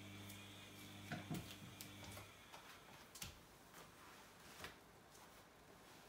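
Bosch WAA28165GB washing machine with a low electrical hum that cuts off about two seconds in, amid a few faint clicks and knocks, the loudest just after one second in.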